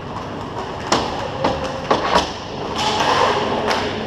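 Hockey game play echoing in an indoor rink: sharp clacks of sticks and puck about a second in, twice around two seconds and again near the end, over steady rink noise from the skaters, with faint distant shouts.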